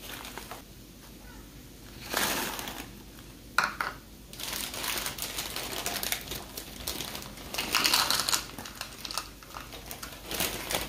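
Brown paper lunch bags crinkling and rustling as they are handled, in several separate bursts a second or so long.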